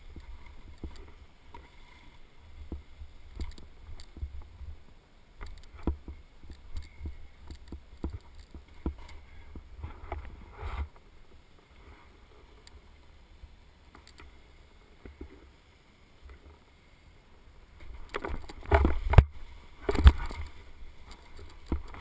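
Snowboard sliding and scraping over crusty snow, with low rumbling and short knocks through the camera's microphone. It goes quieter for a few seconds in the middle, then a louder burst of scraping and two heavy thumps near the end.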